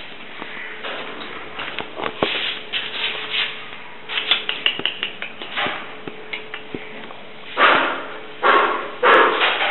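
A dog moving about on a hard floor: small clicks and scuffs, then three louder sounds from the dog near the end, each under a second long.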